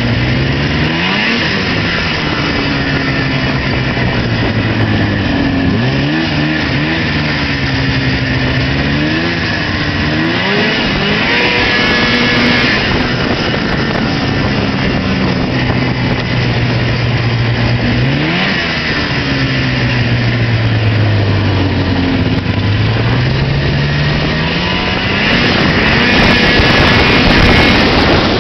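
Arctic Cat Pantera snowmobile engine running under way, revving up and easing off again and again as the throttle is worked. Its pitch climbs sharply about a second in, several times around the middle, and again a few seconds from the end, falling back in between.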